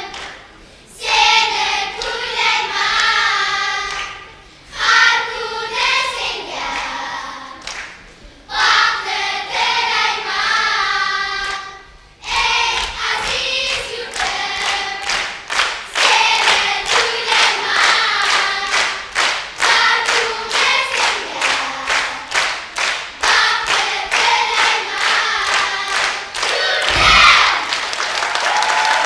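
Children's choir singing in phrases with short breaks. About halfway through, steady rhythmic clapping joins under the singing. Near the end there is a single low thump and applause begins.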